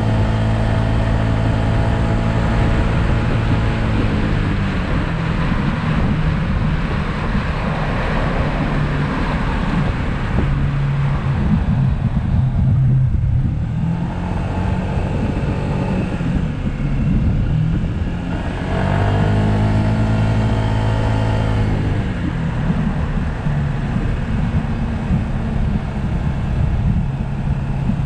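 2020 Yamaha SMax scooter's 155 cc single-cylinder engine running under way, heard over wind and road noise. The engine note drops about four seconds in and climbs again around nineteen seconds in as it speeds back up.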